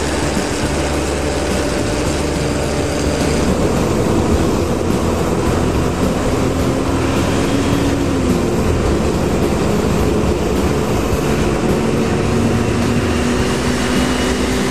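Trucks driving on a road: engines running over steady tyre and road rumble. The engine pitch dips about eight seconds in, then climbs gradually toward the end.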